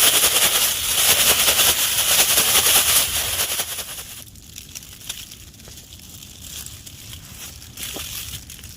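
Loud, dense crinkling and rustling, like plastic or packaging being handled, for about four seconds, then quieter scattered crackles and small clicks.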